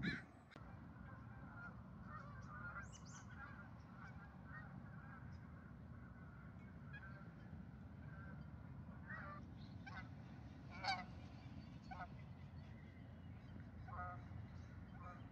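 Geese honking: scattered short calls, the loudest about eleven seconds in, over a steady low background rumble.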